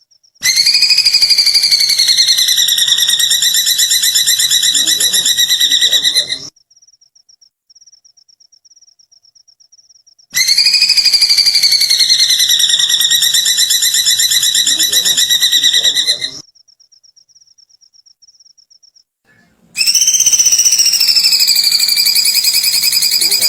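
Recorded bird call used as songbird-training audio (masteran), a call known as 'kikikan kunti': a long, very rapid trill of about six seconds that starts high, dips and then levels off. It repeats three times, with gaps of a few seconds in which only a faint high pulsing tone continues.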